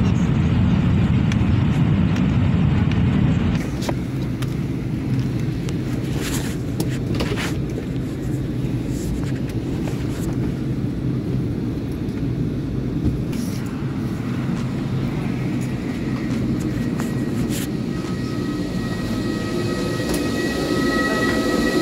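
Airliner cabin noise: the steady rumble of the jet in flight during descent, which gives way abruptly to the lower, steady hum of the cabin on the ground, with scattered clicks and knocks from passengers moving about and getting off. Near the end a steady high whine joins in.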